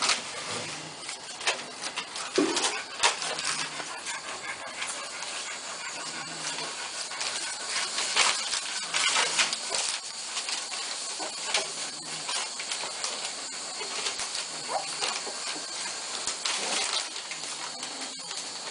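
American Staffordshire terrier puppies play-fighting on spread newspaper: the paper crackles and rustles under their paws, with a few short puppy grunts and squeaks.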